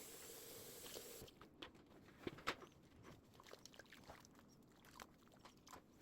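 Faint steady hiss that cuts off about a second in, then scattered faint clicks and taps, the two loudest close together a little past two seconds in.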